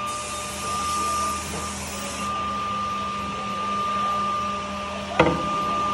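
CNC edge banding machine running with a steady hum and a thin, constant whine, with a high hiss over the first two seconds. A single sharp knock sounds about five seconds in.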